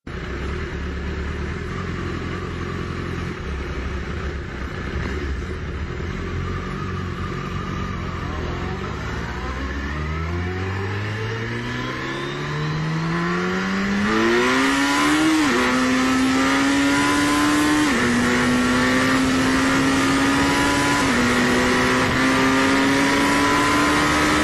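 Twin-turbo Suzuki Hayabusa's inline-four engine runs low and steady. About ten seconds in it accelerates hard, its pitch climbing steadily, with sudden drops at upshifts about fifteen, eighteen and twenty-one seconds in. It grows louder as it pulls.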